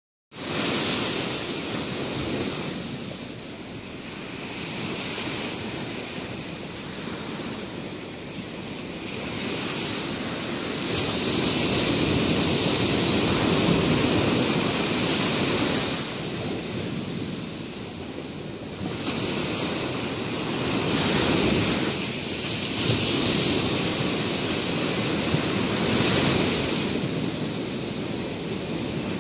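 Sea surf washing on a sandy beach, a steady rushing noise that swells and eases every few seconds.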